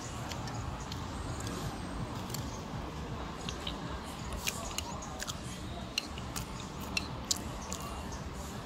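Coffee-shop background: a steady room din with scattered light clinks of a spoon and crockery.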